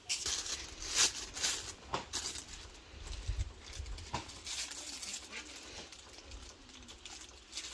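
A clear plastic piping bag crinkling and rustling as cream is spooned into it, with scattered short clicks and scrapes.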